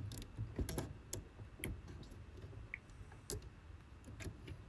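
Faint, irregular light clicks and handling noise from fingers working the plastic and metal parts of a cassette tape mechanism while a new rubber drive belt is fitted around its pulleys.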